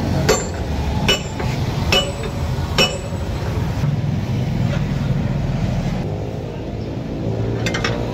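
Four sharp metal strikes, a little under a second apart, each with a short ring: a hammer-type tyre tool knocking the bead of a tractor tyre loose from its steel rim. A few light clicks follow near the end, with a steady low engine-like hum underneath.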